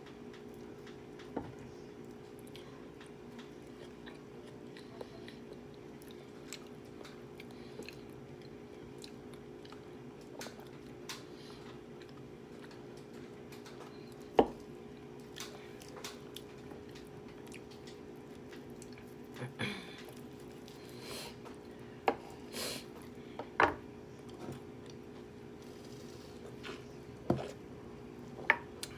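A person eating close to the microphone: chewing, with scattered clicks and knocks of cutlery and dishes, the loudest about halfway through and several more in the last third, over a steady low hum.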